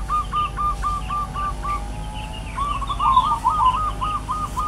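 A bird calling a fast run of short, evenly spaced notes, about five a second, pausing for about a second midway and then starting again.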